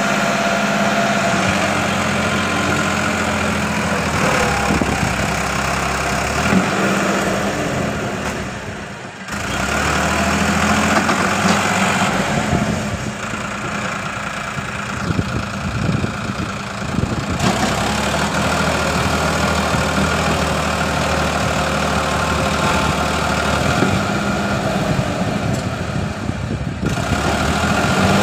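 Diesel tractor engine running hard under load as it hauls a heavily loaded soil trailer out of soft ground, rising in pitch at times as it is revved.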